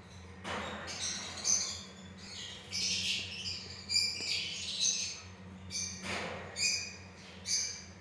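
Lovebirds chirping and squawking in quick, high-pitched calls: a dense run through the first half, then a few short calls near the end. A low steady hum sits underneath.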